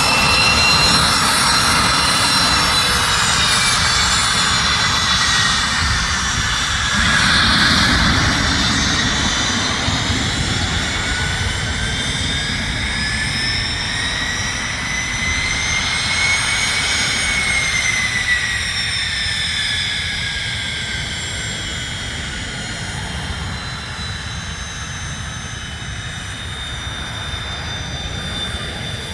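Cessna Citation M2 business jet's twin turbofans running with a high whine over a steady rumble. The whine's pitch slides slowly up and then back down about halfway through, and the sound gradually fades toward the end.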